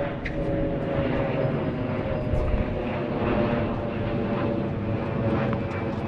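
Steady low engine drone with a held hum, with a few faint clicks over it.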